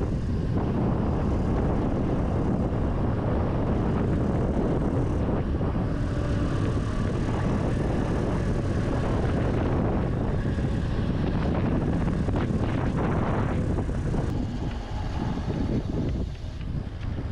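Steady wind rush on the microphone with tyre and trail rumble from a mountain bike being ridden. It eases and turns uneven about fourteen seconds in, with a few sharp clicks near the end.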